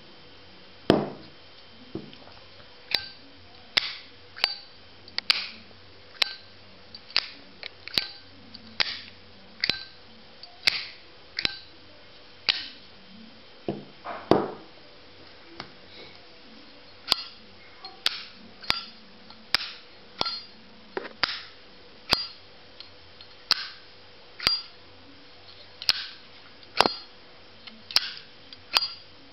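Zippo lighter lids flicked open and snapped shut over and over, each a sharp metallic click with a short high ring, roughly one to two clicks a second.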